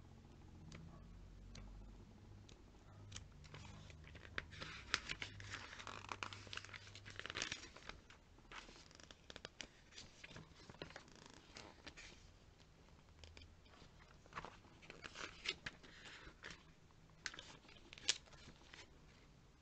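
Glossy catalogue pages being flipped quickly by hand: a run of rustles and crisp paper flicks, busiest about four to eight seconds in and again from about fourteen to nineteen seconds.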